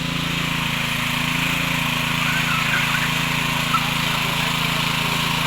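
Small engine of a walk-behind cultivator running steadily.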